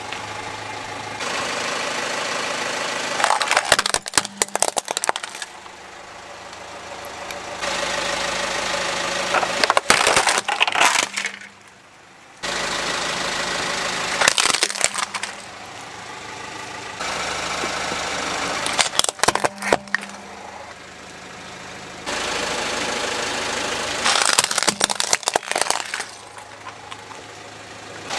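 Toy model cars cracking and crunching under a car tyre about five times, each a short burst of snapping plastic and metal, over a car engine idling. The engine background jumps in level abruptly between crushes.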